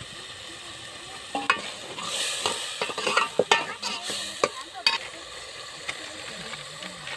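Food frying in a pan with a steady sizzle. From about a second and a half in until about five seconds, a spoon scrapes and clatters against the pan as the food is stirred.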